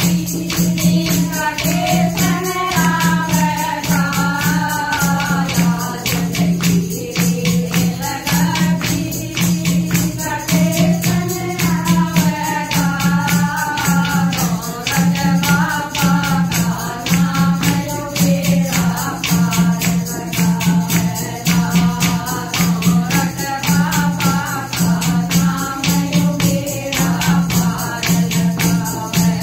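Group of women singing a Haryanvi devotional bhajan together, with steady hand-clapping and a clay pot (matka) beaten as a drum to keep a regular low beat.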